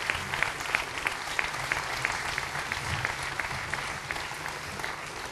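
Audience applauding, with distinct claps close by about three a second over the general clapping, easing slightly near the end.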